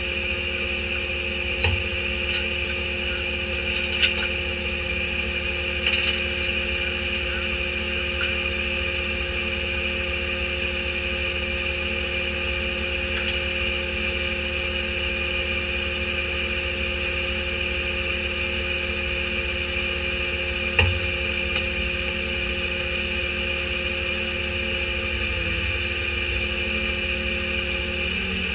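Autocar Leach rear-loader garbage truck idling: a steady mechanical hum with constant tones, heard from inside the rear hopper. A few sharp knocks of metal come through it now and then.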